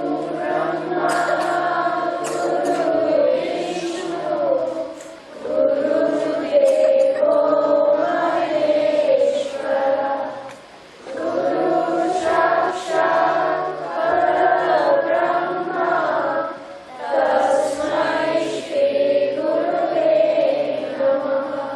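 A group of voices singing a devotional song in unison, in four long phrases with brief breaths between them.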